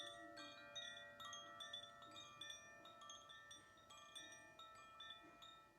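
Faint metal chimes ringing softly, many light strikes at scattered moments with several pitches overlapping and sustaining.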